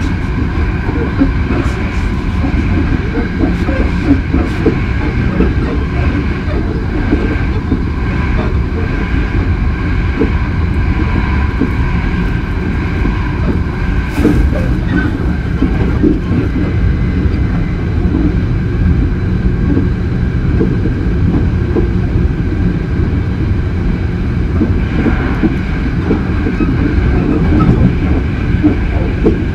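Hankyu 8000 series electric train running between stations: a steady rumble of wheels on the rails with a faint steady whine over it and a few clicks.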